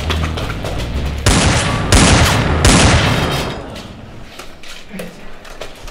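Three loud bursts of gunfire about two-thirds of a second apart, each ringing off after it. The background music cuts out at the first burst.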